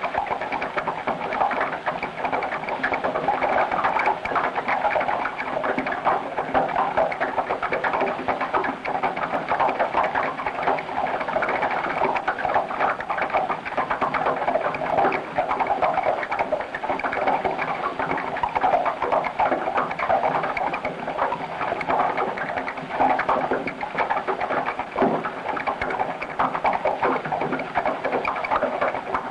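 Soundtrack of an abstract animated film: a dense, unbroken crackling rush of noise with a few steady low hum tones beneath it.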